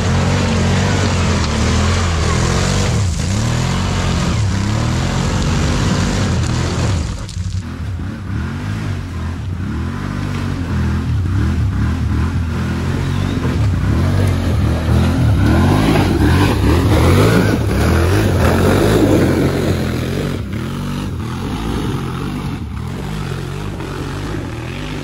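ATV engines revving and running hard, the pitch repeatedly rising and falling. The sound changes abruptly about seven seconds in and again about twenty seconds in.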